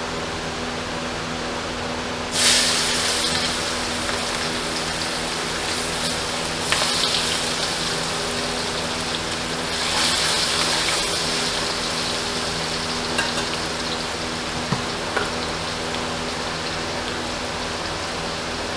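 Hot oil in a stainless steel karahi sizzling as sliced onions go in: the sizzle flares up loudly about two seconds in, then settles into steady frying. It flares again briefly around seven and ten seconds in as the onions are stirred.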